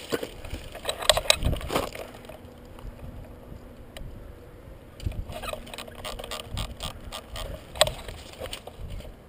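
Irregular rustling and scuffing with a scattering of sharp clicks and knocks, the loudest click near the end.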